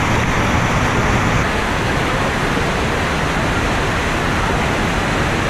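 Loud, steady rushing of a river and small waterfall tumbling through a rock canyon, slightly quieter after about a second and a half.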